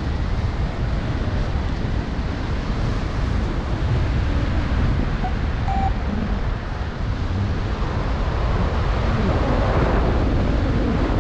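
Steady wind noise from airflow buffeting the microphone of a paraglider in flight.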